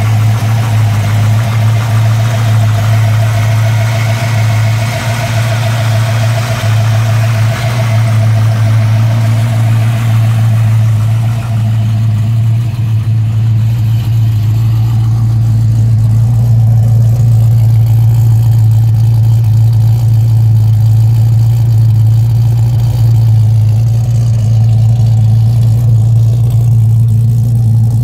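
1965 Ford Mustang fastback restomod's engine idling steadily, still warming up after a cold start. It grows a little louder about halfway through, heard closer to the twin exhaust tips.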